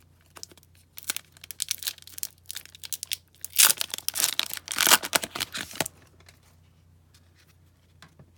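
Foil trading-card pack wrapper being torn open and crinkled by hand: a run of sharp, crackly tearing and rustling that starts about a second in, is loudest in the middle, and stops about six seconds in.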